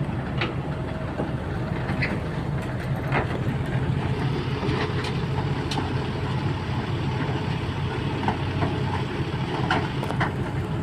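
Kobelco excavator's diesel engine running steadily, heard from the cab, with occasional light clicks and knocks.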